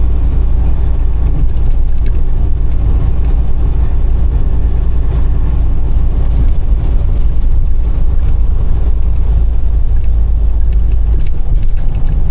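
Truck heard from inside its cab, driving slowly: a loud, steady low rumble of engine and road noise.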